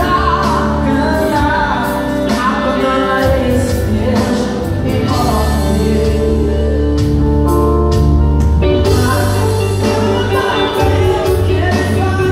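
A man singing a gospel song through a microphone and PA speakers over amplified accompaniment with a strong bass line.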